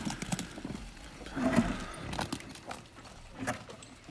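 Ears of corn thrown to a pig, landing with short knocks on the dirt, and a pig grunting once about a second and a half in.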